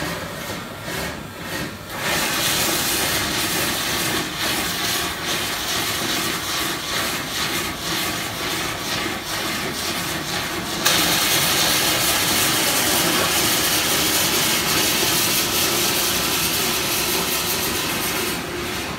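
Pillow-filling machine running, a steady loud rushing noise of its blower and the filling going through it. It jumps louder and brighter about eleven seconds in.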